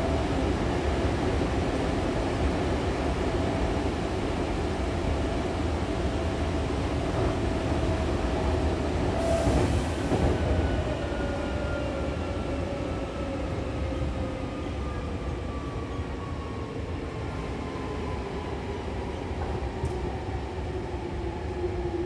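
Electric commuter train heard from inside the car, running and then braking into a station: the rumble of the wheels on the rails, with the motor whine falling steadily in pitch as the train slows. A short hiss sounds about halfway through.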